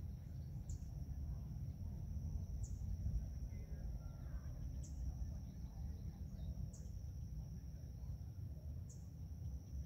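A steady high-pitched insect trill with a short louder chirp repeating about every two seconds, over a low steady rumble.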